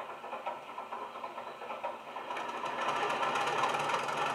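Diesel engine sound of a Hornby Class 31 model locomotive, played by its Legomanbiffo DCC sound decoder through a small EM1 speaker. It has fast, even knocking and is thin, with no deep bass. About two and a half seconds in, the engine note gets louder and fuller as it comes up to running.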